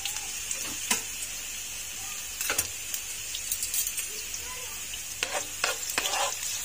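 Sliced onions and whole dried red chillies sizzling in very hot oil in a frying pan, frying until the onions take colour for a tempering. A few short knocks and scrapes from stirring in the pan sound over the steady sizzle.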